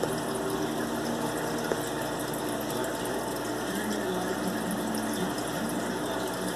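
Aquarium water pump or filter running: a steady wash of moving water with a faint hum.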